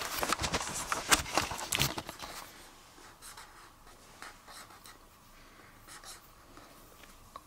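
Felt-tip marker scribbling and tapping on paper: a quick run of scratchy strokes and taps for about the first two seconds, then fainter, scattered strokes.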